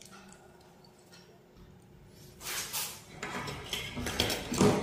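Handling noise from a screwdriver, a plastic switch and insulated wires being worked on a wooden table: small clicks, scrapes and rustles that start about halfway in, with the loudest knock near the end.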